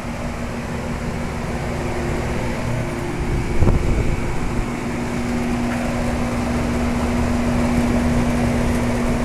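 Mid-1970s York Champion IV 'Tombstone' central air-conditioner condensing unit running steadily: a compressor hum under the rushing air of the condenser fan. The unit is working normally. A brief low thump comes about three and a half seconds in.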